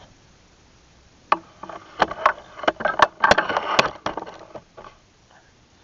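Toys being handled and rummaged through: a quick run of hard knocks and clicks lasting about three seconds, densest just past the middle.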